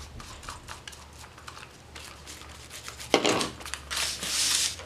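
Kraft paper and craft tools being handled on a work table: scattered light clicks and taps, a brief rustle about three seconds in, and a longer hissing scrape of paper near the end.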